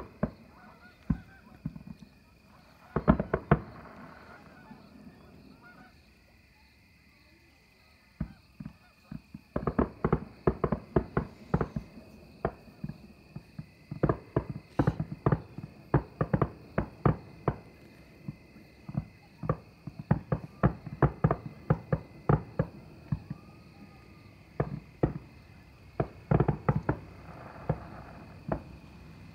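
Fireworks shells bursting in a string of sharp bangs: a short volley about three seconds in, a lull of a few seconds, then dense, rapid bangs from about ten seconds on.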